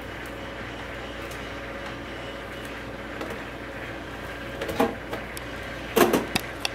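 Plastic DVD cases knocking and clacking together as wrapped cases are gathered into a stack: one knock about five seconds in, then a quick run of clacks near the end, over a steady hum.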